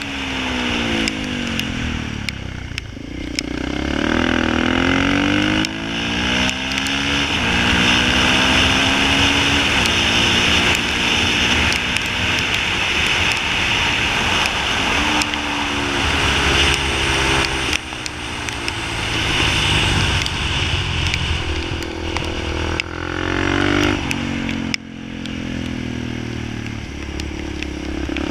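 Motorcycle engine at full ride on a track, its pitch repeatedly climbing under throttle and dropping on gear changes and braking for corners, over a steady rush of wind and road noise.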